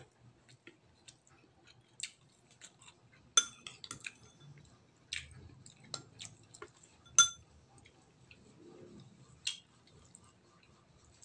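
A person eating rice and octopus by hand, with quiet chewing and mouth sounds. Every second or so there is a sharp click of the dishes; two of them ring briefly, the loudest about seven seconds in.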